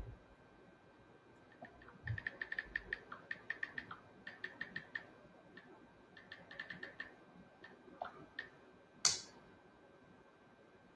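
Smartphone keyboard clicks as a text message is typed: several quick runs of short, faint ticks, then one louder click near the end.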